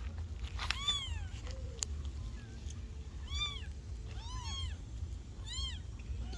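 Kittens meowing: about five short, high mews, each rising and then falling in pitch. One comes about a second in, and the rest follow in a quick cluster in the second half, two of them overlapping. A steady low hum runs underneath.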